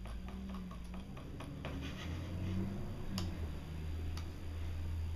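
Rapid, even ticking, about four ticks a second, that stops about two seconds in, followed by two single sharp clicks about a second apart over a low steady hum.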